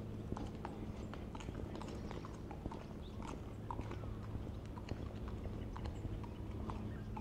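Footsteps on a walking trail, heard as irregular short clicks, with a few faint short chirps and a steady low hum underneath.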